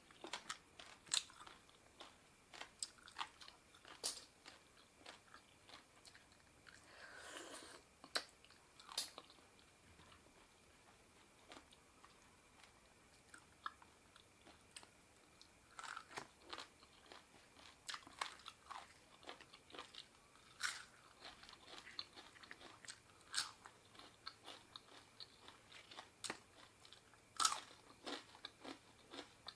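Close-up sounds of a person eating spicy seafood papaya salad: irregular chewing, crunching and wet mouth clicks, with one longer noisy sound about seven seconds in.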